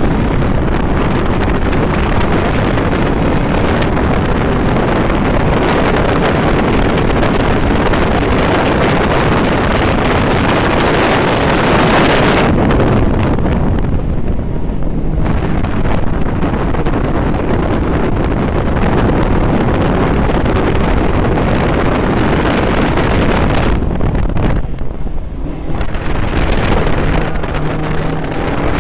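Caterham R300's four-cylinder Ford Duratec engine running hard on track, heard from the open cockpit under heavy wind buffeting on the microphone. The sound falls away twice, about halfway through and again a few seconds before the end.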